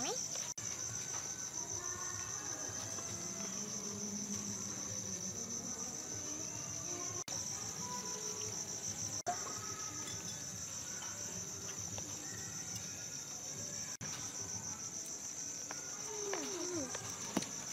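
Night insects chirping in a dense, steady high-pitched chorus, with a fine fast pulse. The sound drops out for an instant a few times.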